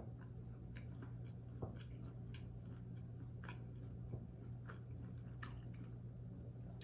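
Close-up eating sounds from chewing okra soup and fufu: scattered soft mouth clicks and smacks at an irregular pace, over a steady low hum.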